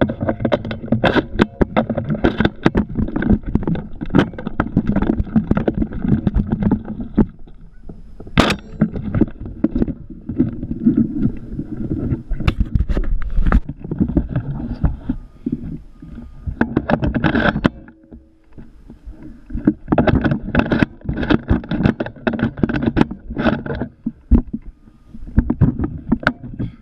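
Handling noise from an action camera mounted on a shotgun barrel as the gun is carried: steady rumbling with many irregular knocks and rubs. It goes briefly quieter about two-thirds of the way through.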